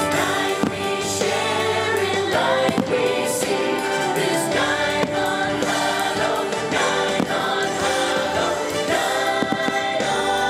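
Fireworks show soundtrack: music with a choir singing, with several sharp fireworks bangs scattered through it.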